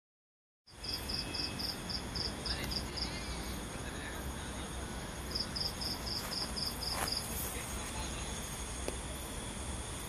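Insect chirping at night: short, evenly spaced high-pitched pulses, about four a second, in two runs of roughly two seconds each, over a steady high drone of other insects and a low hum.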